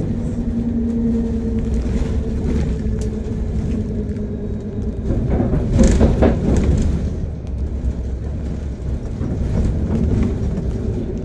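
Steady low rumble of a city bus heard from inside the passenger cabin, with a cluster of brief knocks and rattles around the middle.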